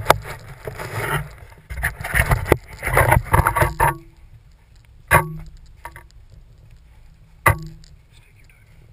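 Handling noise from a handheld GoPro camera while walking: clothing and gear rub and scrape against the camera for about four seconds. Then it goes quieter, with two sharp knocks a couple of seconds apart.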